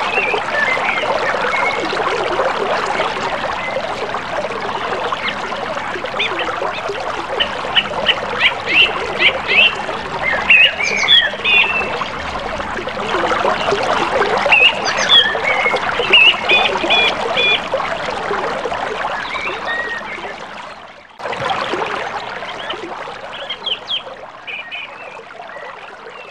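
Rushing river water, with groups of short, repeated bird calls over it; the sound cuts out for an instant about three-quarters of the way through.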